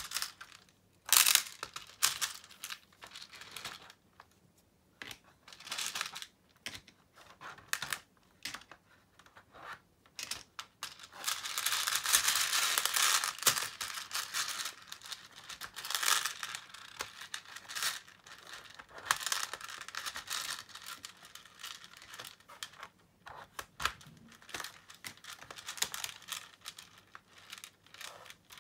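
Small translucent plastic beads clicking and rattling as they are handled and dropped into the compartments of a clear plastic organizer box. There are irregular clicks throughout, with a longer, denser stretch of rattling about halfway through.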